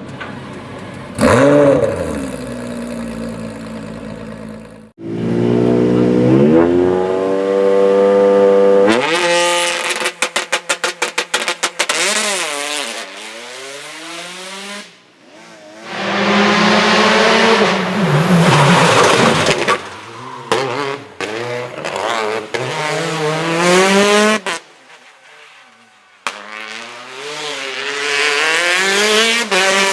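Rally cars' engines revving hard and dropping back as the cars accelerate and brake through a stage, several passes one after another. About ten seconds in there is a fast string of sharp pops and bangs, typical of anti-lag or the rev limiter.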